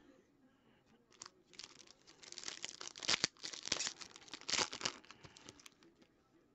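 Foil trading-card pack wrapper being torn open and crinkled by hand, a run of sharp crackles lasting about three seconds before it fades to a few small clicks.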